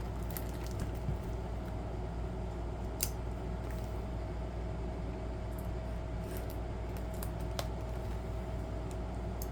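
A few faint, scattered clicks and handling noises from a sealed trading-card booster box being handled and opened, over a steady low hum.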